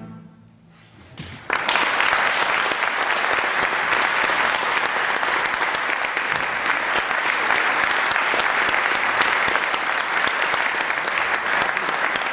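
Audience applause, starting suddenly about a second and a half in after a short hush, then carrying on steadily.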